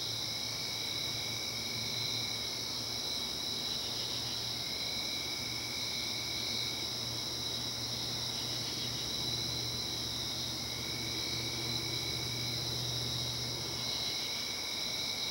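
Crickets chirping steadily in a night chorus at several pitches, one lower-pitched voice dropping in and out every few seconds. A faint low hum sits underneath and fades out near the end.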